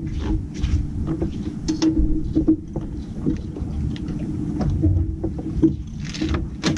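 Boat running slowly while trolling: a steady low motor hum over a low rumble, with scattered clicks and knocks of rods and tackle being handled.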